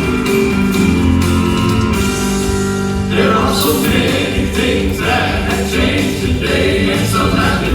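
Gospel quartet song with band accompaniment. About three seconds of instrumental introduction, then the fuller arrangement comes in with voices singing together.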